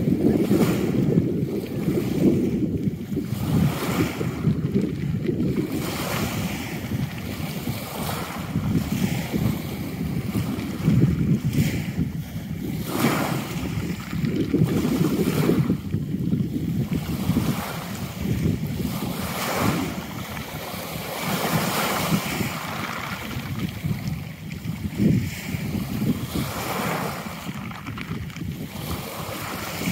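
Sea waves washing and splashing at the water's edge, rising and falling unevenly, with wind buffeting the microphone.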